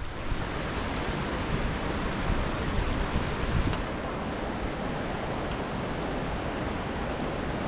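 Steady rush of water from a small waterfall on a river.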